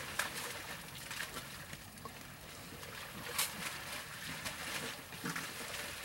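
Elephants wallowing in a mud bath: wet mud sloshing, with several sharp splashes and slaps, the loudest about halfway through.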